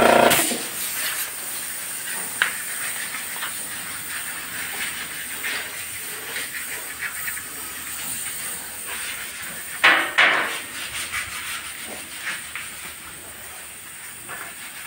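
Gravity-feed air spray gun hissing as it sprays paint onto an alloy wheel rim, the air flow pulsing unevenly as the trigger is worked, with a couple of louder bursts about ten seconds in.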